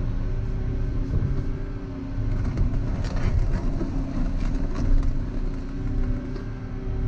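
Volvo EC140EL excavator's diesel engine running steadily, with a spell of sharp cracking and knocking in the middle.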